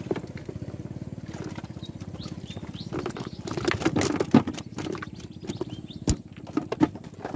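Small boat motor running steadily with a rapid low pulse. From about three seconds in, irregular sharp clicks and knocks lie over it, the loudest about six seconds in.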